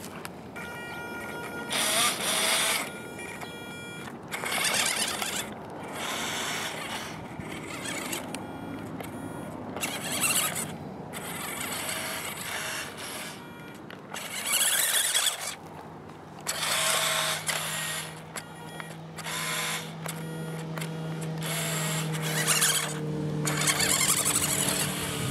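WPL C24 1/16 4WD RC crawler's electric drive motor and gearbox whirring with a whine in about a dozen short throttle bursts, each a second or so long. The truck struggles to drive forward on the slope, which the owner thinks may need breaking in.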